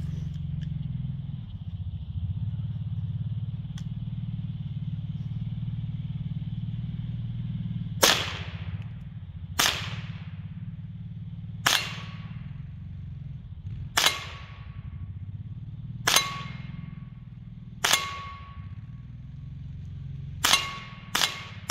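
Kel-Tec CMR-30 .22 Magnum carbine fired eight times, slowly, at a steel gas cylinder down range. The first shot comes about eight seconds in, the rest roughly every two seconds, with the last two close together. Several shots are followed by a brief metallic ring from the hit cylinder, over a steady low rumble.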